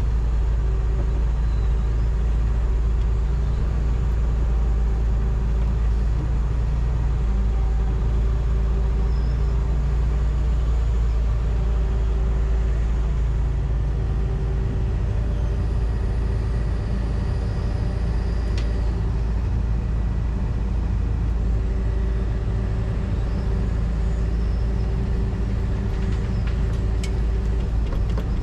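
John Deere 245G excavator's diesel engine running steadily, heard from inside the operator's cab. Its note changes about halfway through, and a few faint ticks come near the end.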